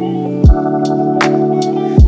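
Background music: held keyboard chords over a steady beat, with a deep kick drum about every second and a half and lighter percussion hits between.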